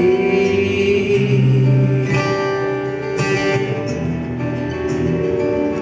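Acoustic guitar playing an instrumental passage of a live song, picked and strummed chords.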